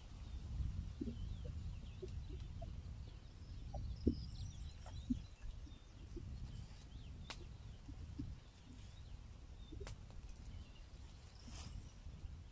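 Outdoor rural ambience: a low wind rumble with scattered short bird calls, and a few sharp clicks of a knife striking the stone slab while a tomato is sliced on it.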